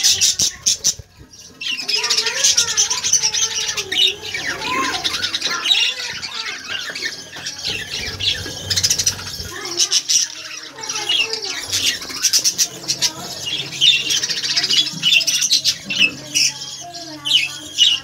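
A flock of budgerigars chattering, warbling and squawking together without pause.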